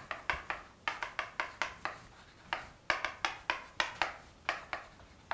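Chalk writing on a chalkboard: a run of quick taps and short scratching strokes, with a brief pause in the middle.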